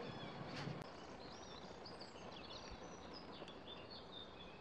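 Faint outdoor background noise with a small bird chirping. The bird gives a string of quick, high chirps starting about a second in.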